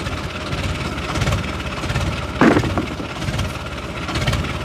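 Farm tractor's diesel engine idling with a steady low, pulsing rumble. A brief, louder burst of sound comes about halfway through.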